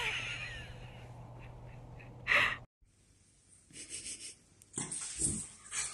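A Jack Russell terrier breathing hard and snuffling in irregular puffs, with scuffs, as it wriggles on its back on a tile floor. Before that comes a short loud burst of noise about two seconds in, and then the sound cuts off suddenly for a moment.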